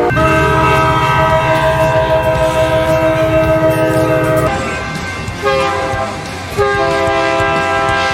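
Multi-chime locomotive air horn sounding a chord of several steady tones: one long blast of about four and a half seconds over the low rumble of the train, a brief toot, then another long blast.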